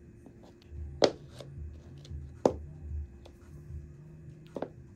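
Three sharp clicks of stiletto heels on new Pleaser platform sandals striking a hard floor, a slow step every second and a half to two seconds. Soft music with a low bass line plays underneath.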